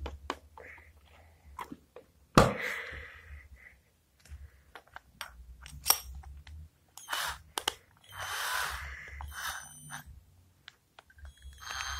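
Clicks and clatter of steel drill bits handled in a plastic bit case, and a spade bit being fitted into a cordless drill's chuck. About two-thirds in, the drill motor runs briefly, twice.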